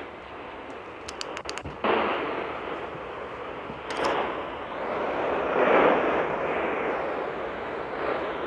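A few quick button clicks about a second in, then weather radio static: a crackling hiss that swells towards the middle and eases off, as the receiver is switched between stations.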